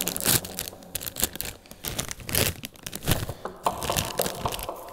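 Foil Cheetos snack bag crinkling with irregular crackles as it is opened and handled.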